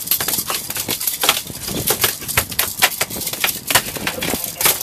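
A freshly caught bluefish flopping on the boat deck: a rapid, irregular run of slaps and knocks, several a second.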